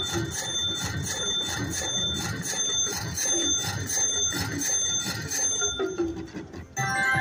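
Slot machine ringing a rapid, steady run of bell-like dings as the win total counts up on its meter during a bonus. The dings stop near the end, and the machine's music jingle starts again.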